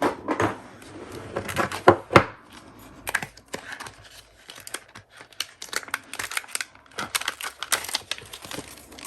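Craft supplies being handled on a work table: a run of sharp clicks and taps with light rustling, as rubber stamps and an archival ink pad are got out and readied.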